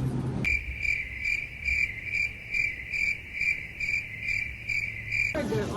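Crickets chirping: a high, evenly pulsing chirp, about two to three chirps a second, that starts and stops abruptly, edited in as a sound effect.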